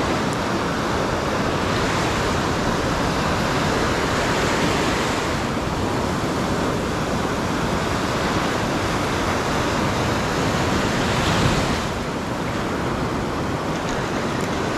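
Steady rushing noise of surf and wind, with wind buffeting the microphone.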